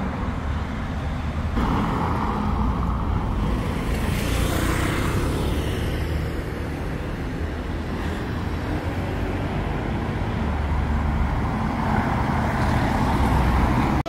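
Street traffic: a steady rumble of road traffic with cars passing, swelling twice, about four seconds in and again near the end.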